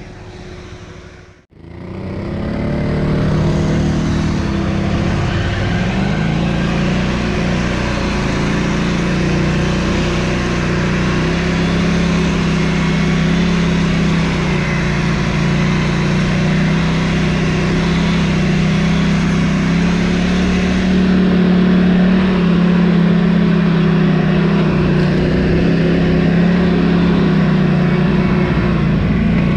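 Quad (ATV) engine running steadily under way off-road, its pitch fairly even, after a brief gap about a second and a half in.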